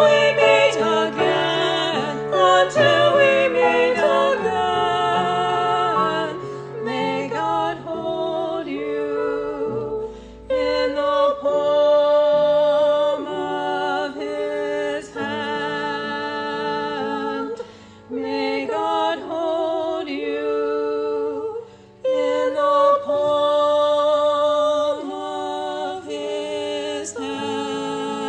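Hymn music with singing: a melody of long, wavering held notes over sustained lower notes.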